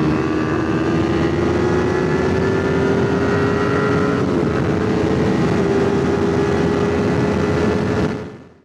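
Motorcycle engine running at speed over rushing wind and road noise, its pitch climbing slowly as the bike gains speed, then fading out near the end.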